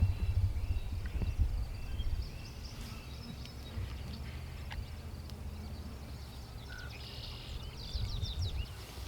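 Songbirds chirping and calling, with a low rumble on the microphone that is strongest in the first two seconds.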